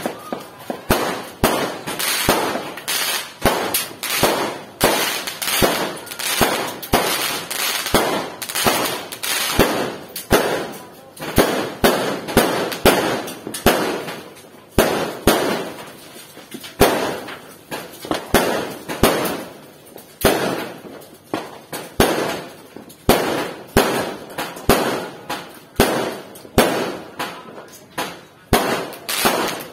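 Fireworks going off in a dense, irregular barrage of sharp bangs, several a second, each trailing off in an echoing crackle.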